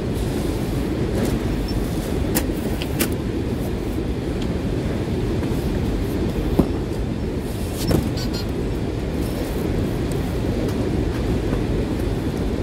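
Steady low rumble of warehouse machinery, with scattered light clicks and rustles of cardboard and plastic packaging being handled.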